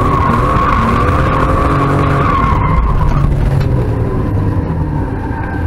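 BMW E36 2.5's straight-six engine running hard, heard from inside the cabin, with the tyres squealing in a slide. The squeal holds steady for about three seconds, then stops while the engine carries on.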